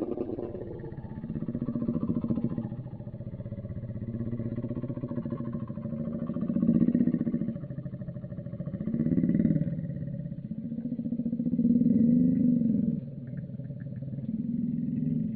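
Designed creature sound effect for the Ningen: a series of about six deep, drawn-out calls, each swelling for a second or two, some bending up and down in pitch.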